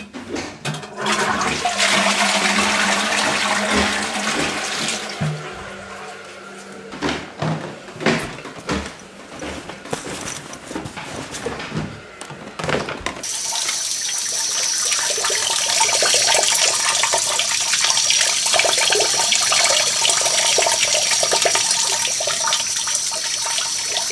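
Toilet flushing: a rush of water broken by gurgles and knocks, then from about halfway a steady hiss of running water with a thin high whistle.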